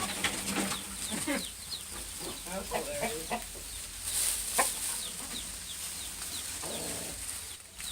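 A flock of American Buckeye chickens clucking, with many short, scattered calls.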